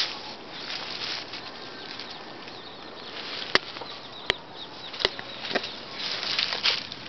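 Dry leaves and twigs rustling and crackling, with three sharp clicks about a second apart in the middle and more crackling near the end.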